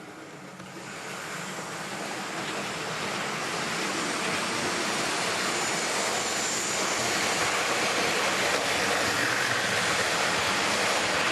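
OO gauge model train running on its track, a steady rushing of motor and wheels that grows louder over the first four seconds and then holds.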